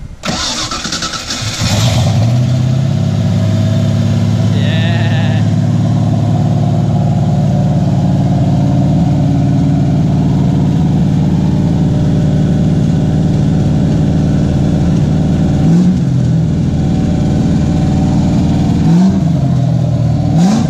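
Ford 5.0 V8 in a Nissan 240SX cranking on the starter, catching after about two seconds, then idling steadily. Near the end come a few short revs.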